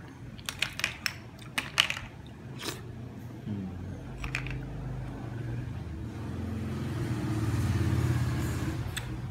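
Metal spoon clinking against ice cubes and a ceramic platter, a few sharp clicks in the first half. In the second half a low engine drone swells, peaks near the end and fades, like a motor vehicle passing.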